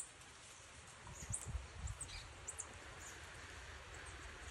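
Faint outdoor ambience: scattered short, very high-pitched chirps, several over the few seconds, above a low rumble.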